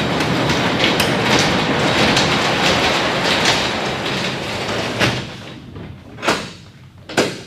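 Large overhead garage door rolling along its track with a steady rattle for about five seconds, then two sharp knocks near the end.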